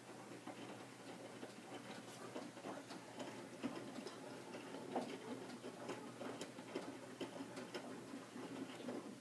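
Hotpoint Aqualtis washing machine drum turning during the main wash, the wet laundry tumbling with faint, irregular clicks and knocks. The tumble stops right at the end, as the drum pauses between turns.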